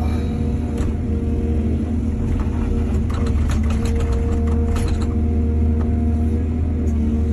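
Excavator diesel engine running steadily, with a run of rattling knocks about two and a half to five seconds in.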